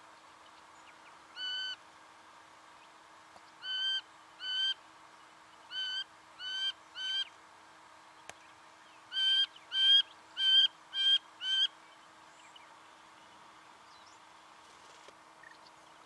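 Singing honeyeater calling: eleven short, even-pitched notes in groups of one, two, three and then five, with the last and fastest group the loudest.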